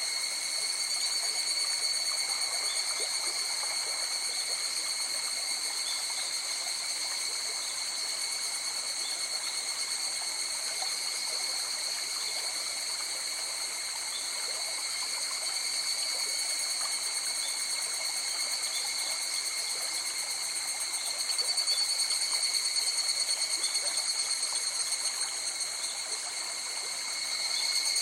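River water flowing steadily, with a continuous chorus of night insects trilling at several high pitches over it.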